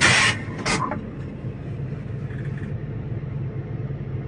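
A brief burst of rustling and crackling in the first second, as an elephant's trunk pulls at dry grass and palm fronds, then a steady low mechanical hum.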